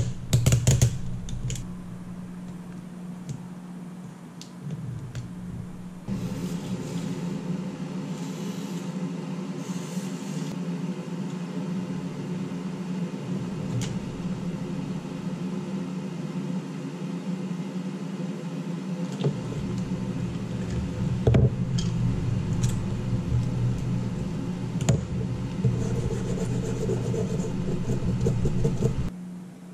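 An electric blower fan running with a steady hum. It gets louder about six seconds in and stops abruptly near the end, with a few faint clicks over it.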